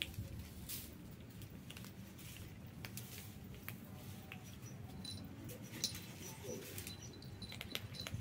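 Two kittens crunching dry kibble: many small, irregular crisp clicks of chewing, faint throughout.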